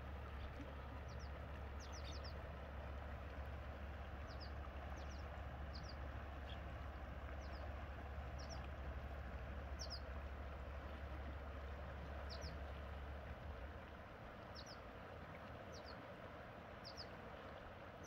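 Salmon River flowing past a rocky bank in a steady wash, with a small bird giving short, high double chirps every second or so. A low rumble underneath drops away about three-quarters of the way through.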